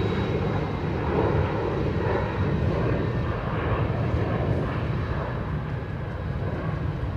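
Boeing 747-400 freighter's jet engines running, a steady loud rumble with a thin whine above it, slowly fading as the jet moves away.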